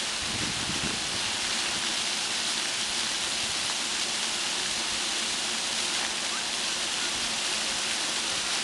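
Dozens of ground-level fountain jets shooting up from a paved plaza and splashing back onto the stone: a steady hiss of falling water.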